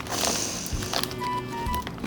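Background music with a light, plain melody. In the first second there is a brief noisy rustle.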